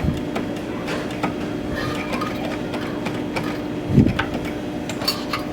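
Claw machine running through a play: its motors whir and click over a steady hum, with a dull thump about four seconds in.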